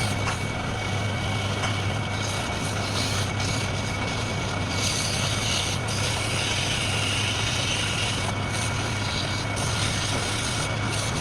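Wood lathe running steadily with a constant motor hum and a broad hiss. The hiss turns brighter between about five and eight seconds in.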